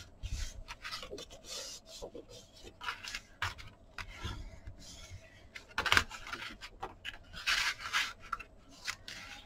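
Pieces of kraft cardstock being handled, slid and rubbed across a cutting mat: dry rustling and scraping in short strokes, with a sharp tap about six seconds in and a longer rub near the end.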